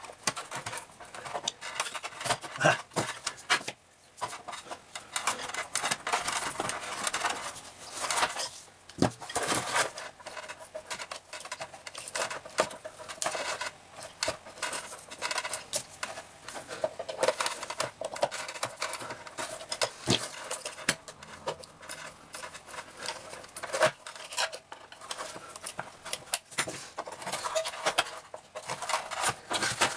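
A screwdriver and long-nose pliers scraping, prying and clicking against corroded batteries and their metal spring contacts in a plastic toy battery compartment. It is an irregular, busy run of small scrapes and clicks as the leaked batteries are worked loose.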